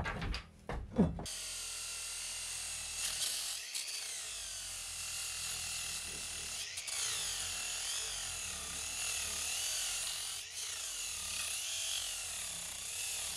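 Angle grinder grinding a copper nail head flush on a rusty iron boat knee. The grinding starts about a second in, after a few short knocks, and the motor's whine wavers up and down as the disc bites into the metal.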